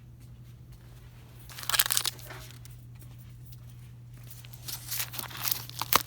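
Plastic packaging crinkling as it is handled, in two bursts, the second ending in a sharp crackle, over a steady low electrical hum.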